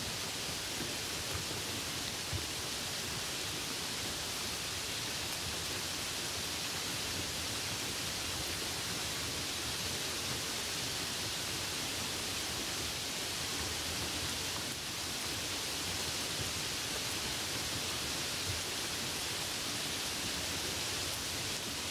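Steady rain falling on a puddle: an even hiss.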